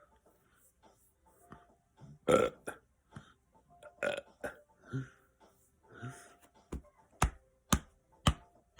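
A man burping: several short burps between about two and six seconds in, the loudest at about two seconds. From about seven seconds on comes a run of sharp clicks, about two a second.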